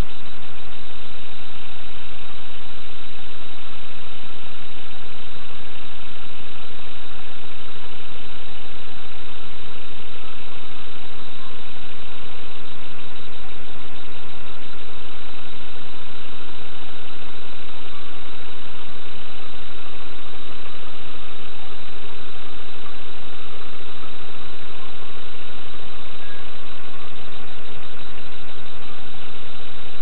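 An engine running steadily at idle, with an even drone and no change in level.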